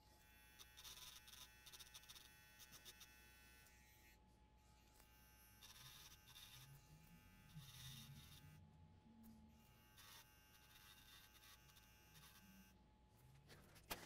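Small battery-powered grinding pen whining in three short runs of a few seconds each, its abrasive tip grinding the solder mask off circuit-board traces to expose the copper. Faint, with stops between the runs.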